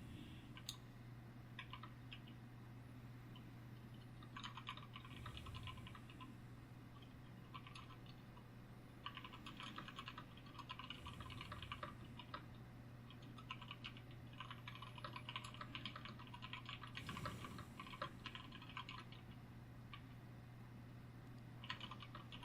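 Typing on a computer keyboard: runs of quick, faint key clicks broken by short pauses, over a low steady hum.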